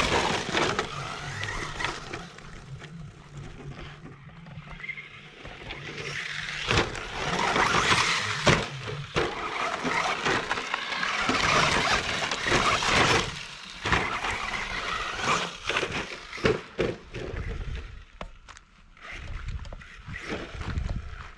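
Traxxas Slash 4x4 RC truck driving on dirt and gravel: the electric motor whining and tyres churning in long swells as it accelerates and slows, with scattered clicks and knocks of gravel and bumps.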